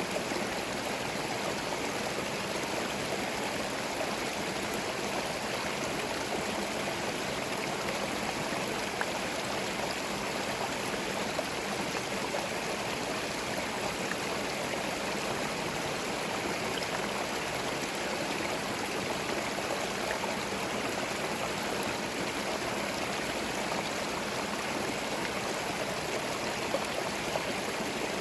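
Small forest stream flowing over stones, a steady babbling and gurgling rush of water with no change.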